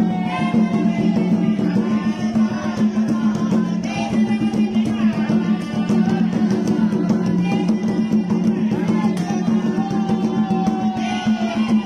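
Loud dance music with a steady drum beat and a melody line running over it.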